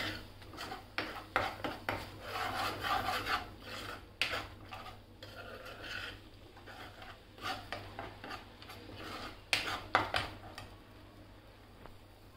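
A steel spoon stirring and scraping thick curry paste around a nonstick wok, in irregular rasping strokes with a few sharper clicks of metal against the pan. The stirring dies down near the end.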